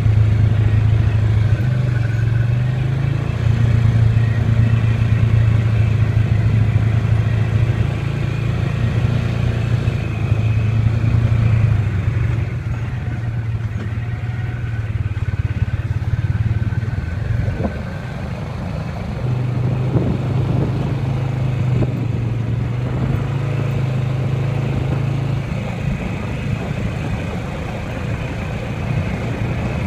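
Off-road vehicle engine running as it drives a rough dirt trail, its low drone easing off for a while partway through and picking up again, then easing near the end. A few knocks and rattles from the ride over the bumps come in the middle.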